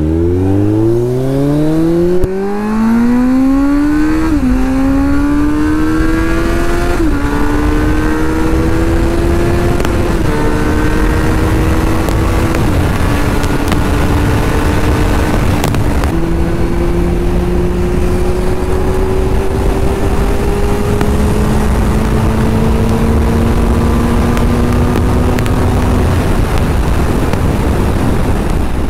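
Kawasaki Z900's inline-four engine accelerating hard, its pitch climbing and then dipping at each upshift, about five shifts in all. Each gear pulls longer than the last, and wind rushes over the microphone throughout.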